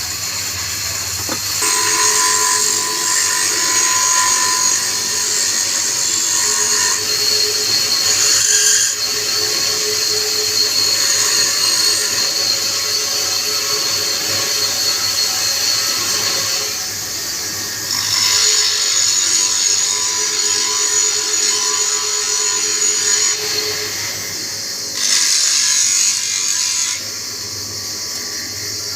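Wood lathe running with a steady hum, while a turning tool cuts the spinning wood in long passes of high hissing shavings. The cutting starts about a second and a half in, pauses twice, and ends with a short louder pass near the end.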